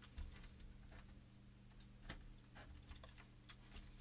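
Faint, scattered clicks and taps of a plastic tumble-dryer knob assembly being handled as its snap clips are worked free, with one sharper click about two seconds in, over a low steady hum.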